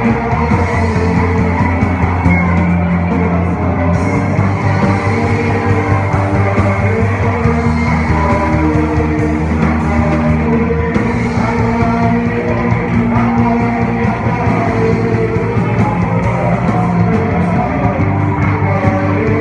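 Worship music in a rock style: a band playing loud, sustained chords with singing.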